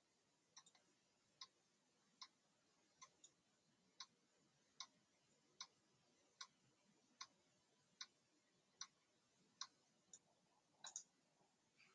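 3.5-inch floppy disk drive reading a 1.44 MB disk: faint, regular clicks about every 0.8 s as the read head steps from track to track.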